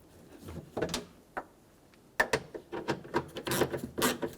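Ratchet wrench snugging down the mounting nuts of a truck's exterior door handle, clicking in short bursts with metal knocks. The sharpest click comes a little over two seconds in, and a denser run of clicks follows near the end.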